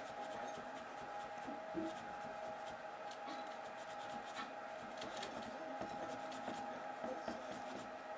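Faint rubbing and scratching of an acetone-dampened paper towel scrubbed over a VCR's rubber pinch roller to take off its glaze, with a few small ticks. A faint steady hum runs underneath.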